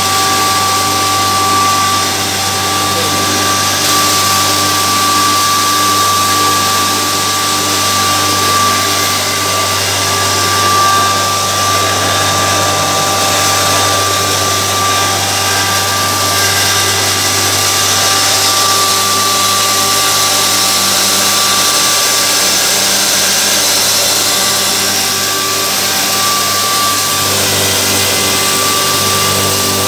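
Electric pulverizer mill running under load and grinding feed poured into its hopper: a steady high whine over a dense, even grinding noise.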